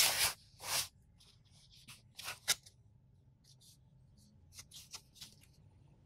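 A small cardboard Zippo lighter box is slid across a plastic cutting mat and picked up, then turned in the hands: two scraping slides in the first second, a sharp tick and rustles around two seconds in, then softer brief rubbing of fingers on the box.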